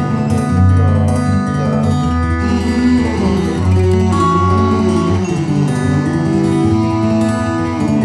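Instrumental background music with a plucked guitar.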